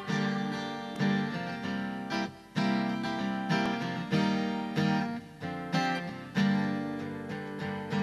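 Acoustic guitar strumming chords, each strum ringing on into the next, with no voice over it.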